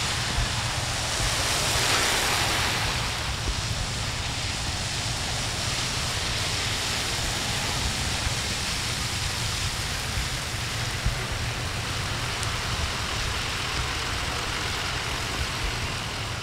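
Cars and vans driving past on a rain-soaked road, their tyres hissing steadily on the wet surface. The hiss swells as one vehicle passes close about two seconds in.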